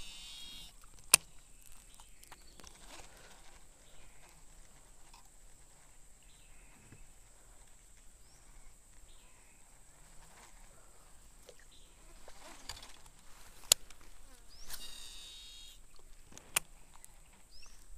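A Shimano Exsence DC baitcasting reel casting twice, once at the start and once about fifteen seconds in. Each cast is a whirring whine of about a second, wavering in pitch as the spool runs out under its electronic brake. Three sharp clicks from the reel are the loudest sounds, over a steady high insect drone.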